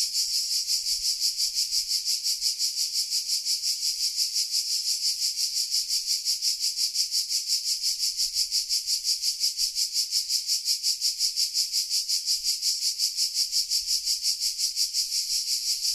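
Cicadas singing in a loud chorus: a high-pitched buzz that pulses evenly about five times a second without a break.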